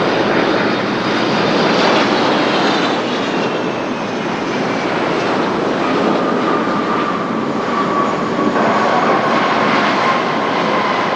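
Airbus A330-323 airliner landing: steady jet noise from its Pratt & Whitney PW4000-series turbofans as it touches down and rolls out on the runway. A high whine falls in pitch over the first few seconds, and a lower whine sets in about halfway through and slowly sinks.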